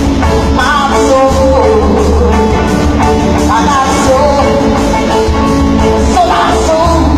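A live band plays loudly, with a lead singer over heavy bass and a steady drum beat.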